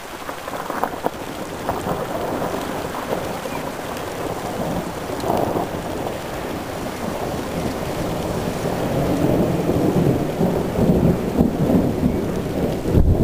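Steady rain falling during a thunderstorm, with a deep rumble of thunder building over the second half and peaking near the end.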